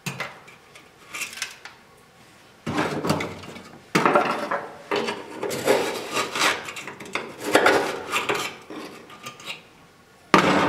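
A metal hand tool scraping, prying and clinking against the rusty sheet steel of a Triumph GT6 body shell, in irregular bursts. A few light ticks come first, the scraping picks up about a quarter of the way in, and there is a sharp metallic hit near the end.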